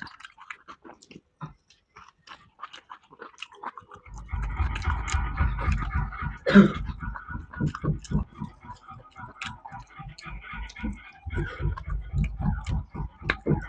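A person eating a meal of rice with spicy chicken fry: light mouth clicks for the first few seconds, then steady close-up chewing from about four seconds in, about three chews a second, with one short louder mouth sound in the middle.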